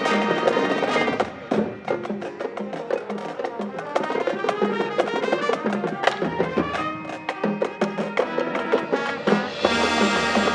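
High school marching band playing its competition field show: sustained wind and brass chords over percussion strokes. The music softens about a second in and swells louder again near the end.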